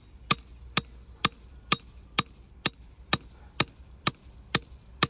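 Hammer driving a steel pin down through a hole in a plastic drainage cell into hard ground: a steady run of sharp metallic strikes with a slight ring, about two a second, eleven in all.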